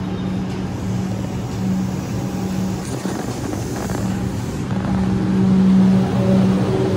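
Heavy vehicle engine running with a steady low drone, swelling a little about five seconds in.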